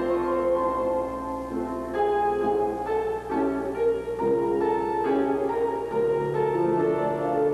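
Piano playing slow, held chords as accompaniment for a classical ballet class, the chords changing about once a second.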